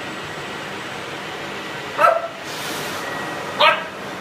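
A dog gives two short barks about a second and a half apart, over the steady whir of a running vacuum cleaner.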